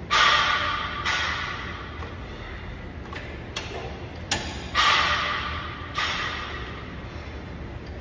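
Gym weights clanking: several sharp metallic knocks at irregular intervals, each ringing and fading over about a second, the loudest near the start and about five seconds in.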